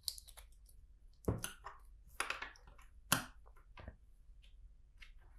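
Plastic LEGO bricks being handled and pressed together, giving a handful of sharp, irregularly spaced clicks.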